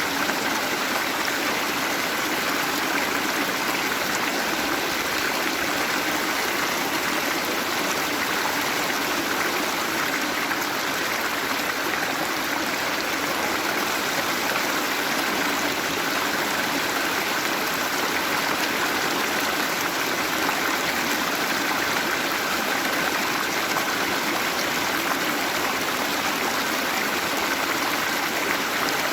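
Waterfall: running water pouring and splashing in a steady, even rush.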